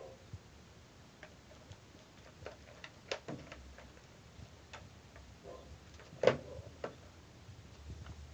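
Scattered light clicks and taps from a plastic toy radio-control transmitter being handled, with one louder knock about six seconds in.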